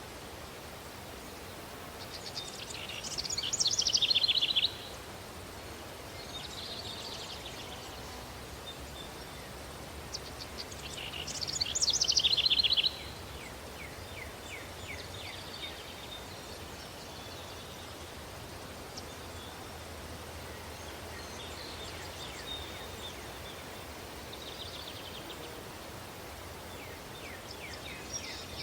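Stock country-day ambience recording: songbirds singing over a steady, breeze-like hiss. Two loud songs of rapid strokes come a couple of seconds in and about ten seconds in, each cutting off suddenly, with fainter chirps in between.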